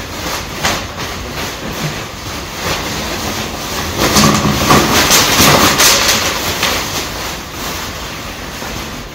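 Plastic interlocking garage floor tiles rattling and clattering as they are tipped out of a bin bag onto a concrete floor. It is loudest for a couple of seconds about midway.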